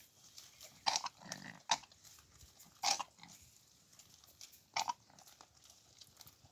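Baby goats eating fodder: a handful of short crunching, rustling bursts as they bite and pull at it.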